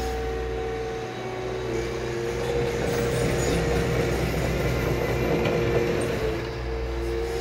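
Liebherr 936 crawler excavator's diesel engine running steadily while the machine swings its boom and bucket. The engine note grows louder and rougher for a few seconds in the middle as it works under load, then settles back.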